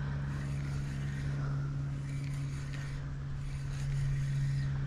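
Spinning reel being cranked steadily, a continuous whirring hum, as a small hooked tailor is wound in; the winding stops near the end.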